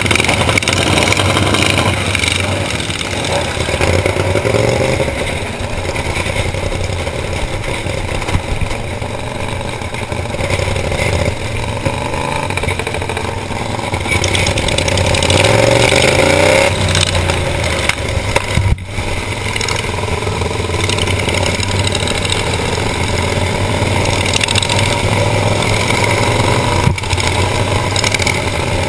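Racing riding lawn mower engine running hard, its pitch sliding down and back up as it slows for a turn and accelerates again.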